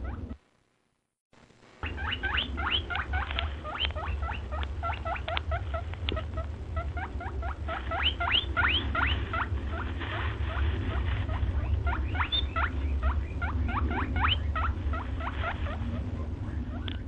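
A small animal squeaking: quick runs of short squeaks, each rising in pitch, several a second, over a steady low rumble. The sound drops out for about a second near the start.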